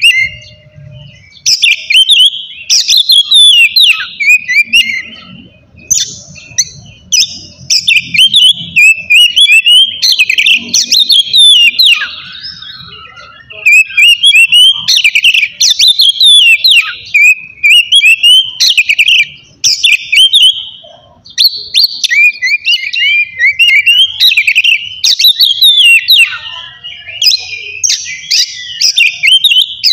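Oriental magpie-robin singing loudly: a fast, varied stream of sweet whistled and chattering phrases, delivered in runs of a second or two with short pauses between them.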